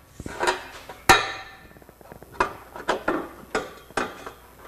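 Steel exhaust pipe clanking and knocking as it is pushed and worked into place onto the outlet of a new catalytic converter, a run of about seven sharp metallic knocks, the loudest about a second in, ringing briefly.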